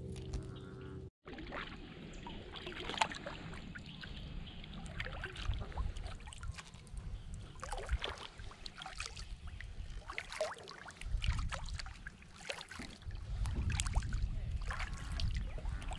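Kayak paddle strokes: the paddle blades dipping and water splashing and dripping in an irregular rhythm, with a low rumble swelling at times.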